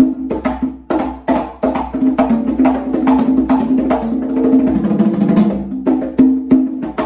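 Congas played by hand in a salsa pattern, a quick run of open tones and slaps across several drums, over a salsa recording with sustained bass and keyboard notes.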